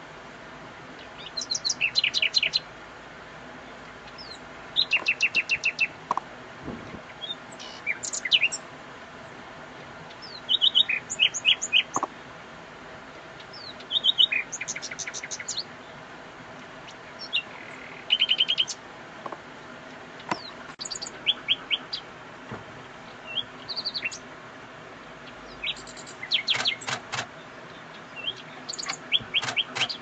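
Nightingale singing: short phrases of fast repeated notes and quick rising and falling whistles, a new phrase every two to three seconds.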